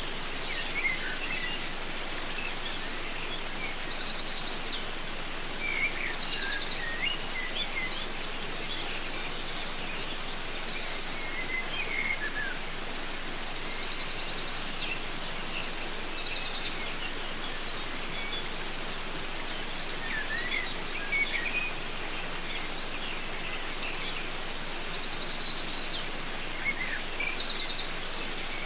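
Steady rush of a waterfall with birds calling over it: short chirps and quick high trills, coming in bouts about every ten seconds.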